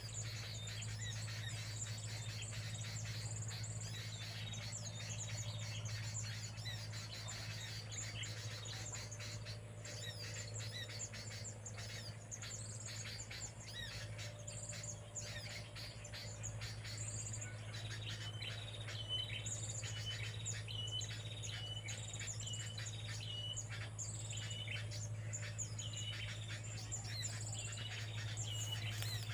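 Small birds chirping and calling, with many quick high notes. About two-thirds of the way through, one short note starts repeating roughly once a second. A steady low hum runs underneath.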